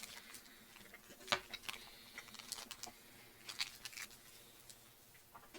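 Faint handling noises: a few scattered light clicks and taps, the sharpest about a second in, as a wrapped chocolate bar is handled.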